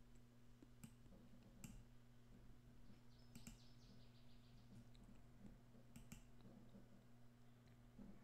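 Near silence: a few faint computer mouse clicks, some in quick pairs, over a steady low hum.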